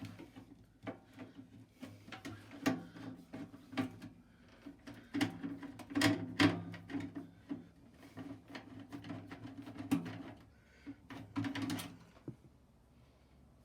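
Irregular clicks, knocks and rattles of a microwave oven's metal door and panels being worked loose and handled, the busiest handling about six seconds in, dying away near the end.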